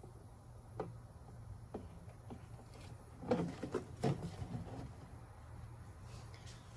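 Plastic gallon jug of engine oil being handled over a funnel. There are a few light knocks early on, then a cluster of clunks and a louder knock around three to four seconds in as the jug is tipped upright and moved away.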